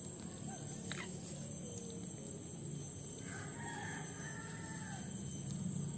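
A single drawn-out animal call, faint, about three seconds in and lasting under two seconds, over a steady low hum.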